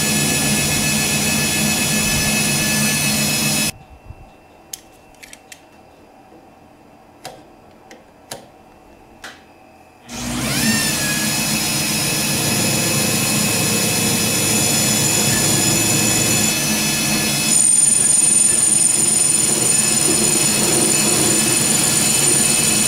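Metal lathe running while a twist drill bores into a spinning 6061 aluminum bar, a steady loud whine with high tones that cuts off about four seconds in, leaving a few quiet clicks. About ten seconds in the lathe runs up to speed again and a carbide insert tool turns the aluminum, a higher whine joining near the end of the cut as curling chips come off.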